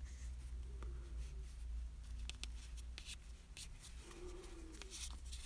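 Faint handling noise of yarn being drawn through crocheted cotton with a yarn needle: light rustling and a few scattered soft ticks over a low steady room hum.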